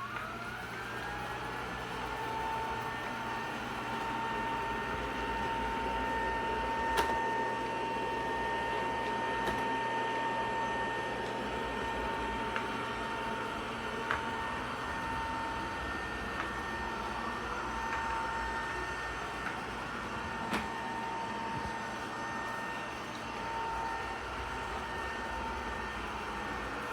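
ROPVACNIC robot vacuum-mop combo running in auto mode. Its motor spins up in a rising whine over the first couple of seconds, then settles into a steady high whine over a rushing hiss. A few sharp clicks come through.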